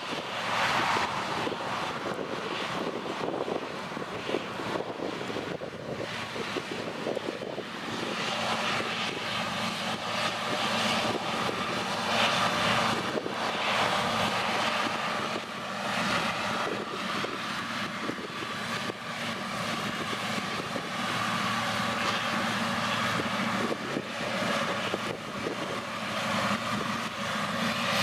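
A steady engine drone: a constant low hum under a rushing noise that swells and fades.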